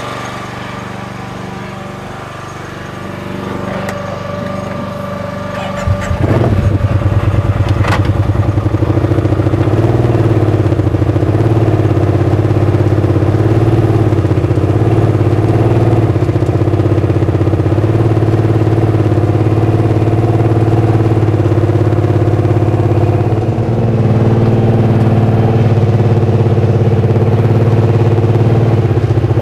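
Side-by-side UTV engine running at a low level, then picking up sharply about six seconds in and running loud and steady as it drives off carrying a mini backhoe in its bed.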